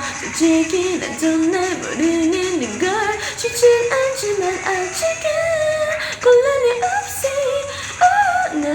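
A singer performs a K-pop song over its backing track, the voice sliding between held notes above a steady beat.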